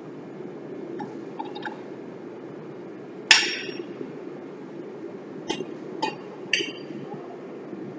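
Metal clinks and clanks of brake-lathe backing plates being handled and fitted: a few light clicks, then one sharp ringing clank a little over three seconds in, then three more clinks near the end, over a steady low hum.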